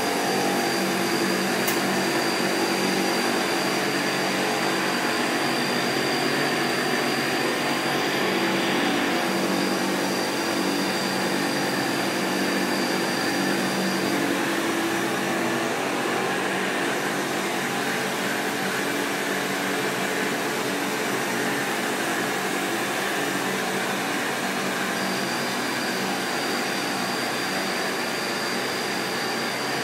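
Steady whir of semiconductor fab machinery and air handling: an even hiss over a low hum of several steady tones, with a thin high whine that drops out about halfway through and returns near the end.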